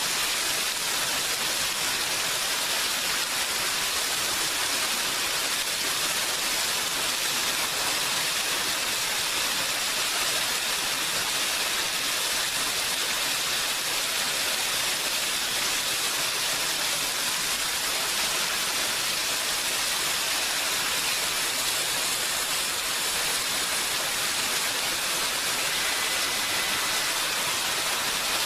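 Steady rainfall: an even, unbroken hiss of rain that holds the same level throughout.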